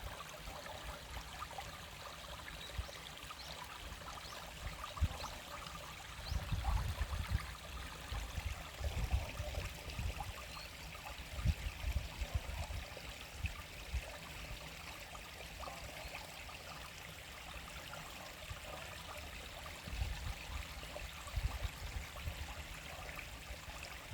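Small winter stream babbling and trickling steadily over stones. Several bursts of low rumble come and go over it, the loudest things in the passage.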